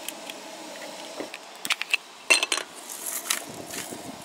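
Metal tongs and utensils clicking and clattering on a camp griddle and table, then a quick rattling shake of seasoning over fries near the end.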